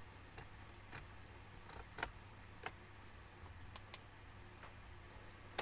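Faint small clicks at irregular intervals, about half a dozen, over quiet room tone.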